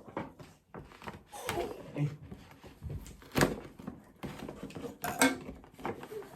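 Gift bags and wrapping rustling and crinkling as a present is unpacked by hand, with irregular bumps, the loudest about three and a half seconds in and again near five seconds.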